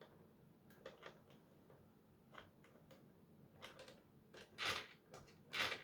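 Faint handling noise: a few small scattered clicks, then two brief rustling sounds near the end.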